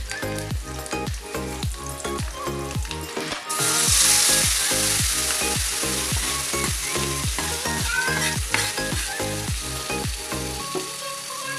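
Background music with a steady beat plays throughout. About three and a half seconds in, a loud sizzle of food frying in hot oil starts suddenly and keeps going.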